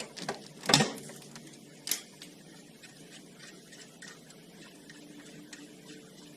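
A few sharp clinks and knocks of hand tools, the loudest just under a second in and another at about two seconds, then only a low background.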